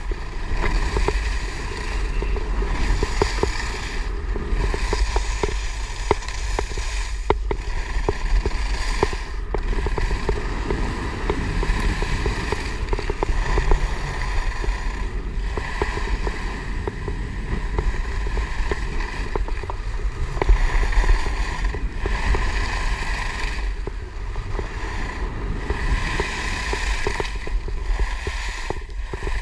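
Wind buffeting a moving action camera's microphone, mixed with the hiss and scrape of skis carving on groomed snow, the noise swelling and fading every couple of seconds with the turns.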